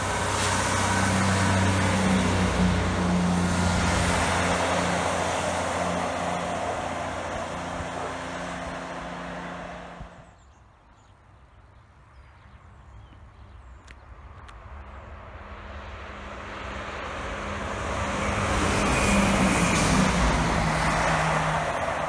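Class 158 diesel multiple unit running past with its underfloor diesel engine hum and wheel rumble, fading slowly, then cut off abruptly about halfway through. A Class 170 Turbostar diesel unit follows, approaching, its engine and wheel noise swelling to a peak shortly before the end.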